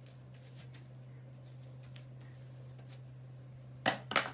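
A few faint ticks over a steady low hum, then two sharp knocks in quick succession near the end.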